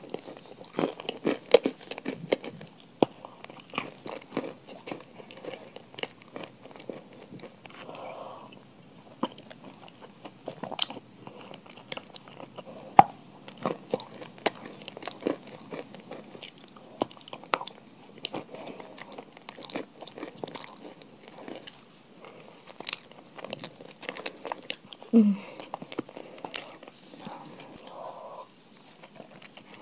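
Crunchy food being bitten and chewed, with many irregular sharp crunches, and a short 'mm' hum about 25 seconds in.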